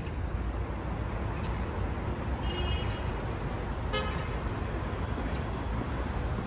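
Steady outdoor traffic rumble, with two short horn-like toots: a high-pitched one about two and a half seconds in and a lower one about four seconds in.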